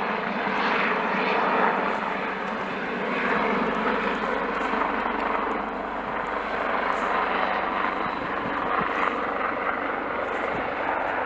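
AgustaWestland AW149 twin-turboshaft helicopter flying in on its landing approach: steady turbine and rotor noise with a low steady hum.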